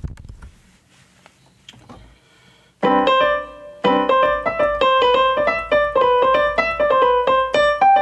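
Piano playing a passage from a string quartet: after about three seconds of near quiet with a few small clicks, it comes in with a chord, a second chord about a second later, then a quick run of repeated notes.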